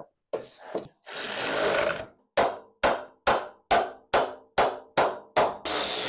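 Air ratchet driving the bolts of a rebuilt Toyota Celica door hinge. It runs for about a second, then gives about eight short blips, roughly two a second, then runs steadily again near the end.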